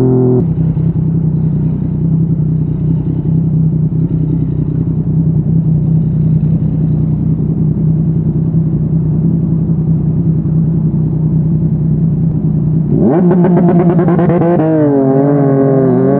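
Yamaha MT-09's inline-three engine through a Yoshimura R55 slip-on exhaust, running at a steady engine speed. About thirteen seconds in, the revs climb sharply, drop at a gear change, and climb again near the end.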